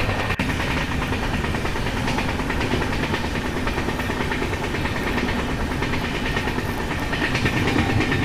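Passenger train running along the track, heard from the open doorway of a moving coach: a steady noise of wheels on rails.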